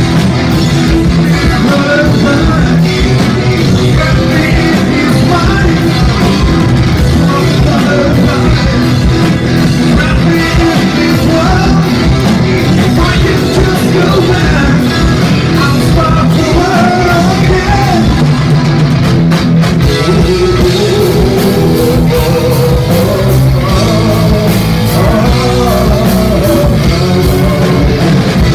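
Rock band playing live, loud and unbroken: drums, electric guitar and a male lead singer's vocals.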